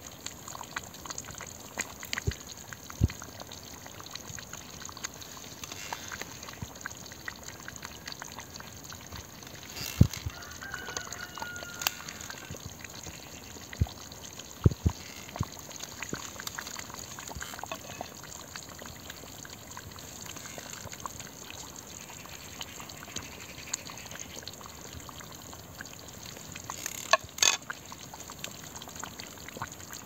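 Thick tomato stew simmering in a pot over a wood fire: steady bubbling with scattered small pops and crackles from the pot and the fire beneath, a few of them louder.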